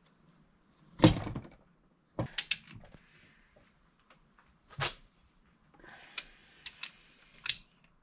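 Metal clunks and clinks of differential parts and hand tools being handled on a workbench, the loudest a heavy metal clunk about a second in, followed by several sharper knocks and clicks with a stretch of rummaging in between.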